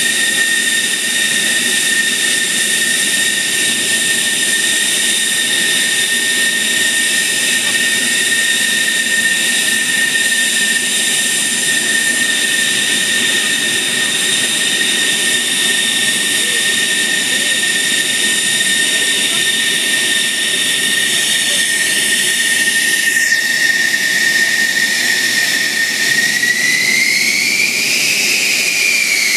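F-16's jet engine idling with a loud, steady high whine. About 26 seconds in, the whine rises in pitch and then eases back down, a brief spool-up.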